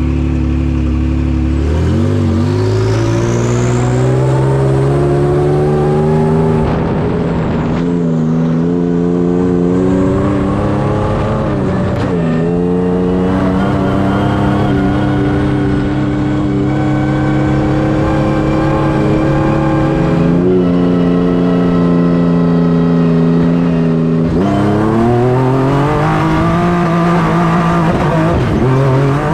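Honda Ridgeline Baja race truck's engine heard from inside the cockpit. It sits at a low, steady speed, then pulls away about two seconds in and runs hard, its pitch climbing and falling back sharply several times.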